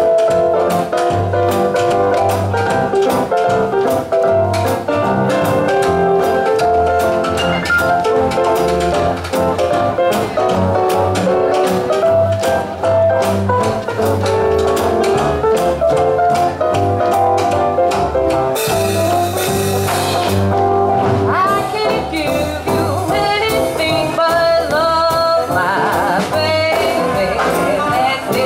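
Live swing jazz band playing an up-tempo number, with a walking double bass, piano and a steady beat. In the second half a clarinet carries a wavering melody line.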